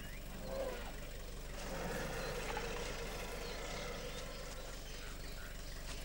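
Safari vehicle's engine idling: a quiet, steady low rumble with faint outdoor ambience.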